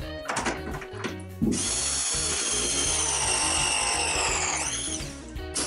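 Milwaukee M12 ProPress battery press tool crimping a copper press fitting: a second or so of clicks and rattles, then the motor runs for about three seconds, its pitch slowly sinking under load as the jaws close, and stops near the end.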